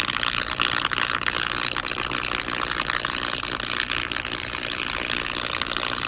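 Powered TV cable converter circuit board shorting out in salt water, sizzling and crackling steadily with small arcs, over a steady low hum.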